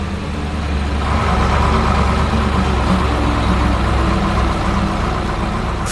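Heavy diesel engine of a construction vehicle running steadily, growing louder about a second in.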